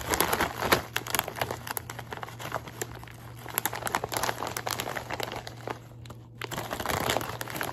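Foil potato chip bag crinkling as it is handled and turned over, with a short pause about six seconds in.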